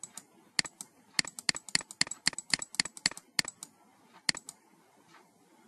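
Computer mouse button clicked rapidly and repeatedly, often as quick press-and-release pairs, each click stepping a simulated program one instruction. The clicking stops about three and a half seconds in, with two more clicks a little after four seconds.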